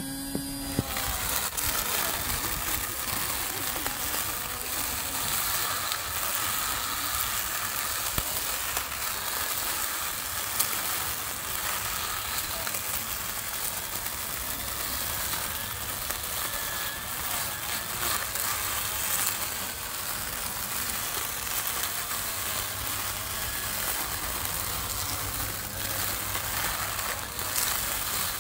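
Small electric string trimmer, its motor in the green head, spinning up in the first moment and then running steadily as the line cuts through long grass.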